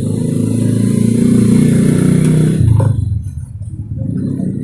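A motorcycle engine going past, loudest about two and a half seconds in, then dropping away after about three seconds.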